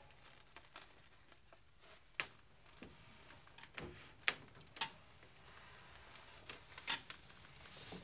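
Faint, scattered light clicks, taps and soft rustles of small things being handled in a quiet room, the sharpest about four seconds in.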